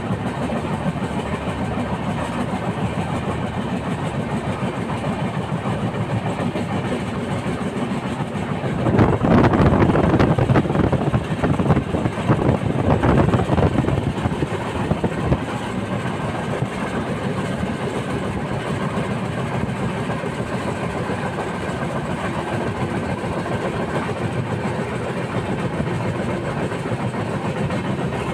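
Rail wheels running over track heard from aboard a moving train: a steady rumble with a fast clatter. It swells louder for about six seconds a third of the way in, then settles back.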